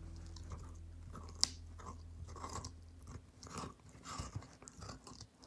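A Samoyed dog chewing a raw peeled carrot: one sharp crack about a second and a half in as her teeth break into it, then a run of crunchy bites that tails off near the end.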